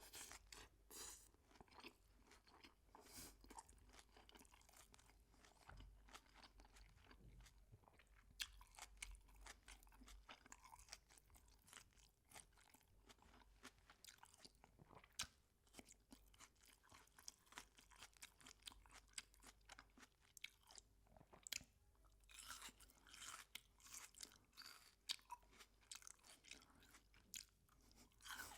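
Close-miked chewing of crispy fried chicken: a quiet, continuous run of small sharp crunches.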